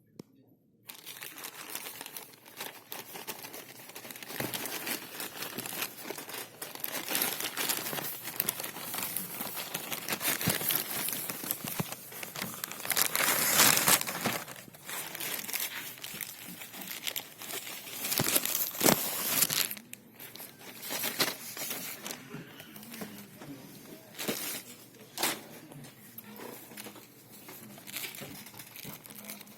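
Packaging being crinkled and torn open as a watch is unboxed. The rustling starts about a second in, is loudest in bursts around the middle, and thins to scattered rustles and sharp clicks later on.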